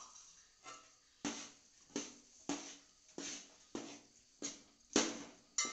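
Metal spoon stirring and scraping thick jackfruit-and-jaggery paste around a metal pan in steady strokes, about nine of them, a little under two a second. The paste is being cooked down with ghee until its water is gone.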